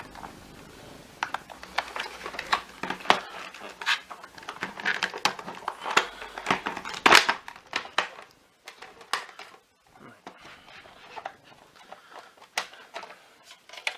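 Irregular clicks, knocks and light clatter of the hard plastic parts of a Miele Triflex HX1 vacuum floor head being handled and taken apart, busiest in the first half and sparser later.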